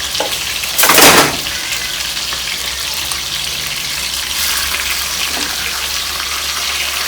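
Chicken pieces deep-frying in hot oil, a steady sizzle, with a loud surge of sizzling about a second in.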